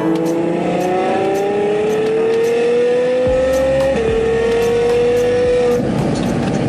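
Ferrari 812 Superfast's V12 with a Novitec straight-piped exhaust, accelerating hard with its note climbing steadily. About four seconds in the pitch drops at an upshift, holds steady, then gives way to a rougher, noisier rumble near the end.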